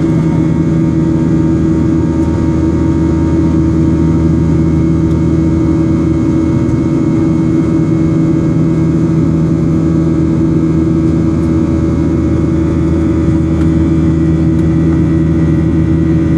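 Steady drone of a Boeing 737's turbofan engines in flight, heard from inside the passenger cabin: an even rushing noise with a few constant low hum tones.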